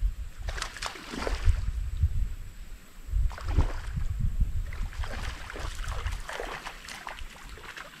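Water sloshing and splashing in several short bursts over a gusting low rumble of wind on the microphone.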